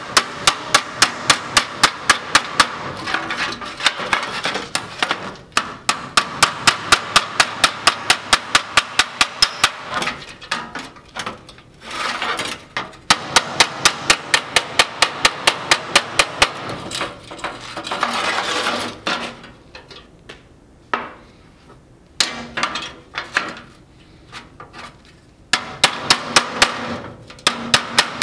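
Body hammer striking a 1935/36 Ford steel dash panel against a dolly in quick, even runs of about five blows a second, broken by short pauses and a few scattered taps. It is hammer-and-dolly work smoothing low spots and waviness out of the sheet metal.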